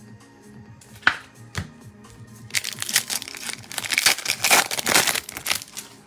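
Trading-card pack wrapper being torn open and crinkled: a couple of sharp clicks about a second in, then about three seconds of crackling, over quiet background music.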